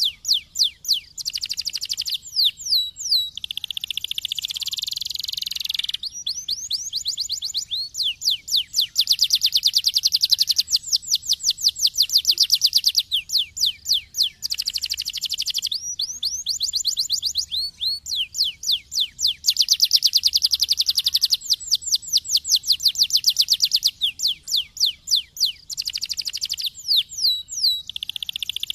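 Domestic canary singing: phrase after phrase of fast trills, each a run of rapidly repeated high chirps at a steady pace, with short breaks between phrases.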